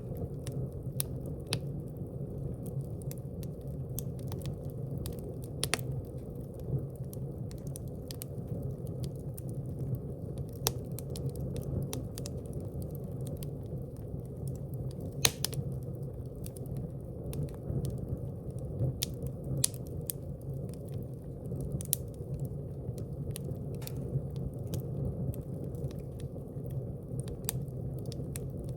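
Fire crackling in a fireplace: irregular sharp pops and crackles over a steady low rush of burning, with one louder pop about halfway through.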